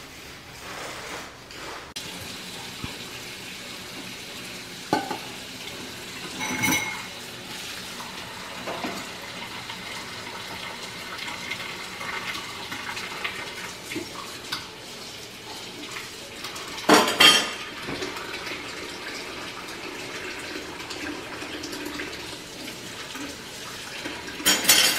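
Kitchen tap running into a stainless steel sink while dishes are washed by hand, with several sharp clanks of dishes against the sink; the loudest come about two-thirds of the way through and again near the end.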